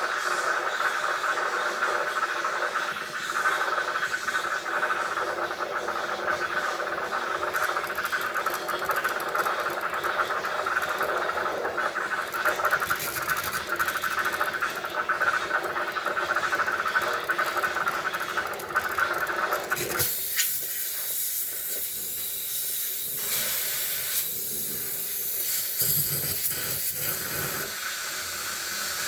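Steady hissing noise that shifts to a higher, airier hiss about twenty seconds in.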